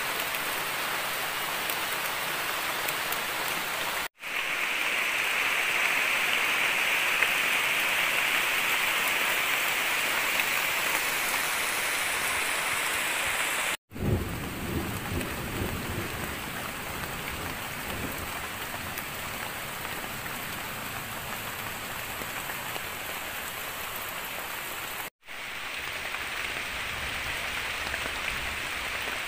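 Heavy tropical rain falling steadily on forest foliage, a steady hiss that drops out for an instant three times. A low rumble sits under the rain in the middle stretch.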